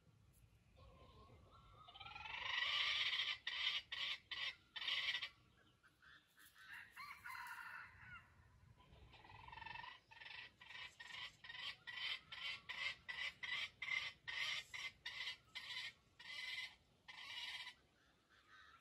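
Wild jungle chicken calling: a loud bout of rapid repeated clucking calls about two seconds in, then, after a short pause, a longer run of quick clucks, a few a second, that stops near the end.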